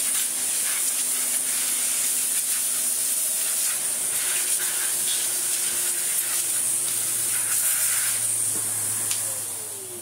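Victor V9 vacuum cleaner running with a high whine and rushing air as it sucks caked dust off a clogged vacuum filter. Near the end it is switched off and its motor winds down, falling in pitch.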